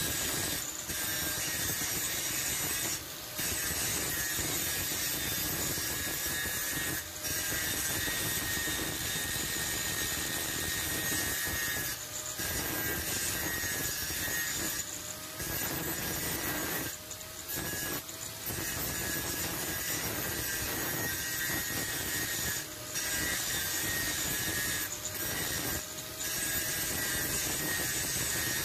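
Angle grinder's abrasive disc grinding the hardened steel of an old file clamped in a vise, shaping it into a knife blade: a steady high motor whine over harsh grinding noise, with short breaks every few seconds.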